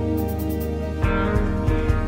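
Instrumental film-score music playing over the end credits, with sustained notes and a few low beats in the second half.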